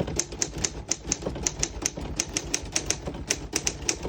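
Keys of a 1953 R.C. Allen Model 700 manual desktop typewriter being typed in a steady run, about four or five sharp clacks a second as the typebars strike the platen. The keys strike evenly, none skipping or sticking.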